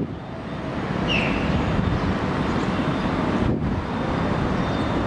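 Rumble of a departing R142 subway train fading down the elevated steel track, blended with steady street traffic noise. A brief high squeal comes about a second in.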